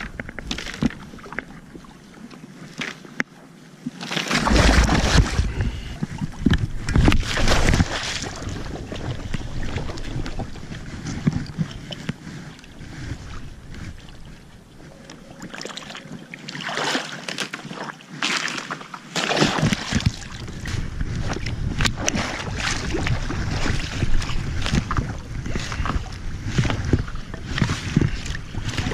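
Irregular water sloshing and splashing, with wind on the microphone; the loudest surges come about four seconds in and again about sixteen seconds in. It is most likely a person breaking through thin pond ice into shallow water.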